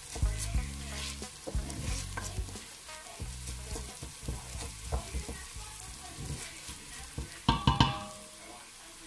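Wooden spoon stirring and scraping diced onions and green pepper frying in a stainless steel pot, with irregular scrapes and clicks over the frying. About seven and a half seconds in, a few sharper ringing knocks, as of the spoon against the pot.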